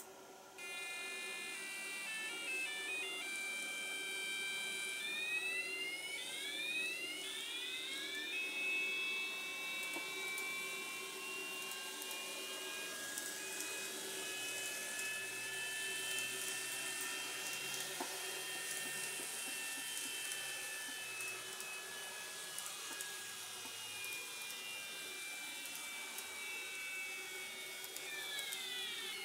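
N-scale Kotoden model railcar's motor, driven by DCC/PWM set to imitate the 'Doremifa' VVVF inverter, singing as the car pulls away: a rising stepped scale of tones, then whines sliding upward as it speeds up. It then holds a steady high whine while running. A falling whine begins near the end as it slows.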